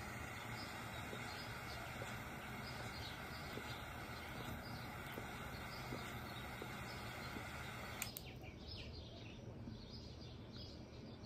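Triple-jet butane torch lighter burning with a steady hiss as it lights a cigar, cutting off abruptly about eight seconds in.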